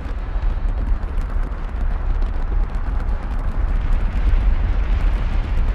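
Fireworks going off in quick succession: a continuous low rumble of bursts, with many small crackles and pops through it.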